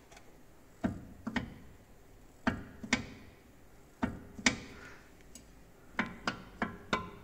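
Knocking from a worn front suspension link with a ball end and rubber bushings on a Mercedes SL R230, rocked by hand: pairs of sharp knocks, then a quicker run of about three knocks a second near the end. The play in the link is what knocks, not the shock absorbers, and no damper can quiet it.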